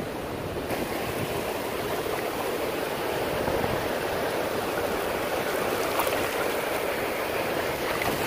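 Shallow beach surf washing in foam over sand close to the microphone: a steady rush of water that gets a little louder and brighter about a second in.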